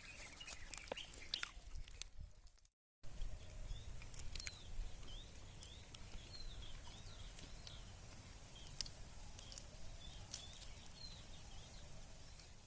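Faint rural outdoor ambience: small birds chirping repeatedly in short high notes, with scattered light clicks over a low rumble. The sound drops out completely for a moment about three seconds in.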